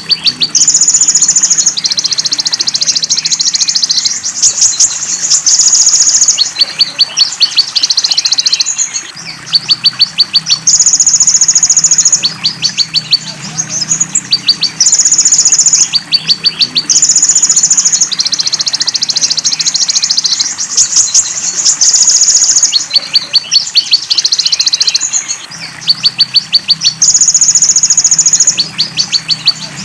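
Looped song-tutoring recording of 'belalang emas' and cililin calls, played for kolibri ninja (konin) sunbirds to learn. High buzzy phrases of a second or two alternate with fast ticking trills and repeat over and over, with a faint low hum underneath.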